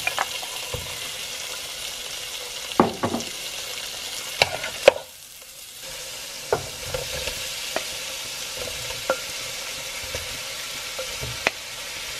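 Sliced sausage sizzling in oil in a nonstick frying pan, with scattered sharp clicks as pieces drop in and are moved about. The sizzle dips briefly about five seconds in, then carries on steadily with onions in the pan.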